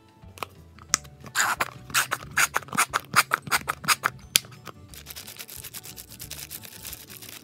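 A quick run of sharp snips or clicks, about three a second for some three seconds, then a softer, steady scraping hiss, with faint music underneath.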